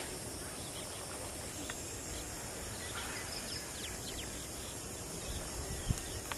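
Outdoor ambience: a steady high insect drone with a few short, falling bird chirps midway, and a single dull thump about six seconds in.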